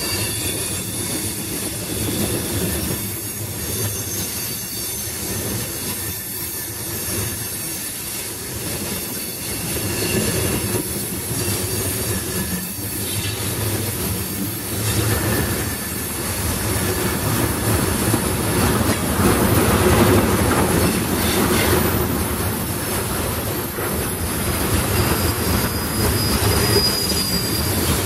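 Freight train of tank cars rolling steadily past a grade crossing: a continuous rumble of steel wheels on rail, with the clickety-clack of wheels over rail joints and a thin high wheel squeal at times. It gets a little louder about two-thirds of the way through.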